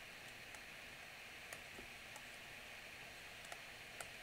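Steady low hiss with a handful of faint, sharp clicks from a stylus tapping on a tablet screen during handwriting.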